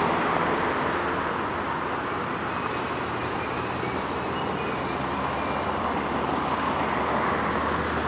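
Diesel freight locomotives running steadily as the train approaches slowly: a constant low engine rumble under a broad wash of noise.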